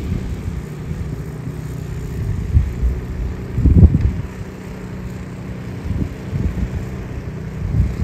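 Snow blower's small engine running steadily, with gusts of wind rumbling on the microphone, the strongest about halfway through.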